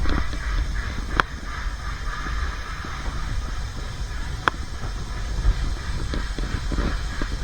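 Narrow-gauge steam-hauled train running on the rails: a steady low rumble with a hiss, and two sharp clicks, one about a second in and another a few seconds later.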